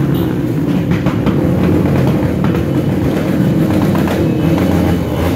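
Motorcycle engines of a large group ride passing by, a loud steady rumble with several engines running at once.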